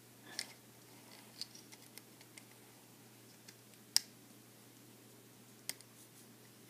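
Scattered faint clicks and snaps of a plastic hook and rubber loom bands against the plastic pegs of a Rainbow Loom as bands are hooked and pulled over. The sharpest click comes about four seconds in, with another near six seconds.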